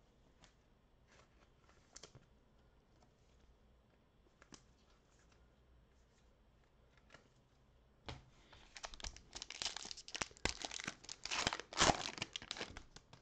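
Foil wrapper of a 2021 Donruss football card pack being torn open and crinkled by hand, starting about eight seconds in and loudest near the end, after a few faint clicks.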